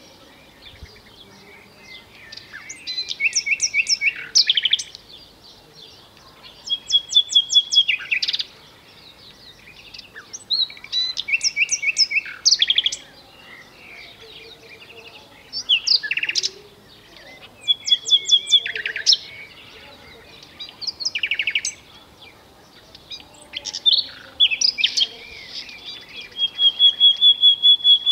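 Common nightingale singing: about eight phrases of a second or two each, separated by short pauses. Each phrase is made of rapid runs of repeated notes, trills and clear whistles, and near the end comes a long run of evenly repeated whistled notes.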